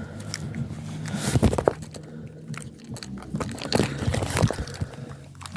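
Handling noise: irregular clicks, knocks and scrapes, loudest about a second and a half in and again near four seconds, over a steady low hum.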